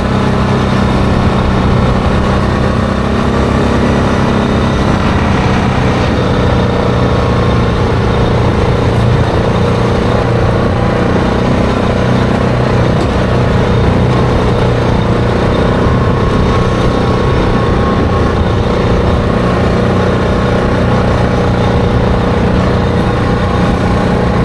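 ATV engine running steadily at an even cruising speed, over a constant rush of tyre and wind noise.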